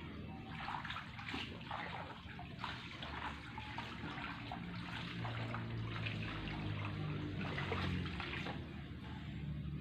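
Pond water splashing and trickling in irregular bursts as azolla is scooped up and the water drains out of the harvesting basket back into the pond. A low hum runs underneath.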